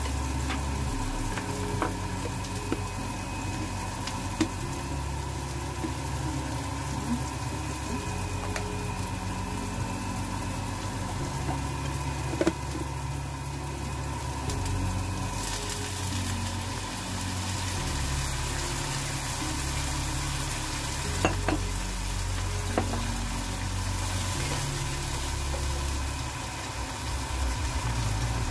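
Diced onion sizzling in hot oil in a nonstick pan, with a few sharp clicks of a plastic spatula against the pan as it is stirred. A steady low rumble runs underneath, and the sizzle gets brighter about halfway through.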